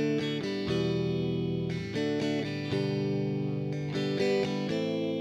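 Background music: a guitar intro playing a slow run of chords, each held about a second before the next.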